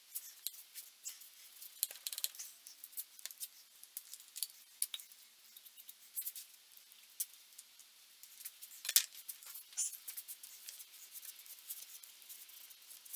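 Light clicks, crackles and rubbing from gloved fingers working chair-joint glue in around a wooden table leg, with one sharper click about nine seconds in.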